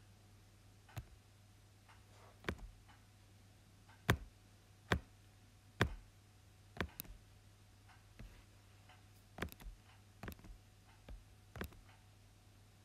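About a dozen sharp clicks at uneven intervals, the strongest a third of the way in, over a steady low hum.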